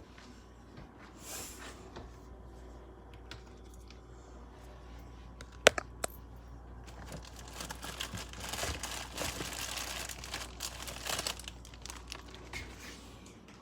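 Plastic food packaging crinkling as it is handled, with a sharp knock about six seconds in.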